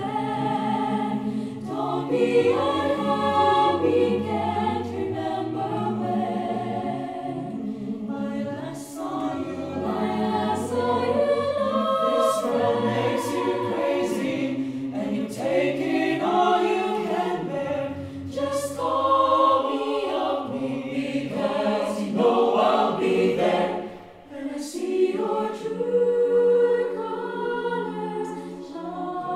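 Mixed-voice choir of sopranos, altos, tenors and basses singing together in multi-part harmony, a cappella, with a brief drop in loudness about three-quarters of the way through.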